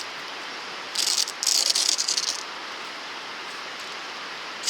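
Camping gear being handled and packed into a canoe: a burst of rustling and rattling about a second in that lasts about a second and a half, over a steady rushing hiss.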